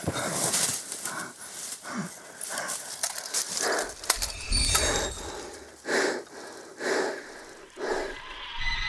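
A man breathing hard, with a heavy breath about once a second, mixed with a couple of sharp metallic clicks and a low rumble that comes in about halfway through.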